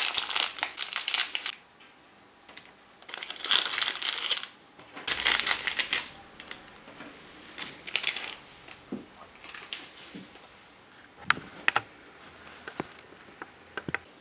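Thin clear plastic candy bag crinkling in several loud bursts as it is opened and handled, then a few sharp, light clicks and taps.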